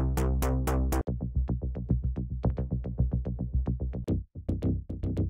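Electronic cinematic music loops from a sample pack, previewed one after another. A loop with a steady pulsing beat cuts off abruptly about a second in and a faster-pulsing loop starts; near the end it drops out briefly and another loop takes over.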